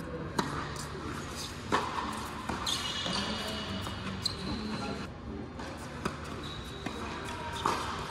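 Tennis doubles rally: racquets striking the ball and the ball bouncing on a hard court, about five sharp pops spaced a second or two apart, starting with a serve.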